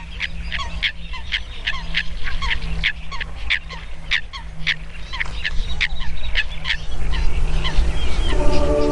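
A waterbird calling over and over in short, sharp, honking notes, about three a second, which stop about seven seconds in. Soft music with held tones starts near the end.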